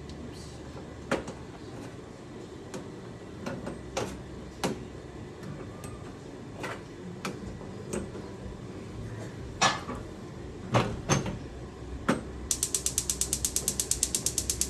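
A few scattered knocks and clatters of parts being handled. Near the end comes a rapid, even run of sharp clicks, about ten a second: a gas cooktop's spark igniter clicking as a burner is tried after the valve replacement.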